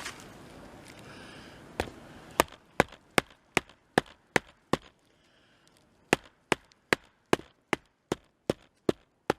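Batoning: a wooden baton stick striking the back of a small multitool hatchet's head, driving the blade into a log. Two runs of quick, sharp wooden knocks, about two or three a second, with a short pause about five seconds in.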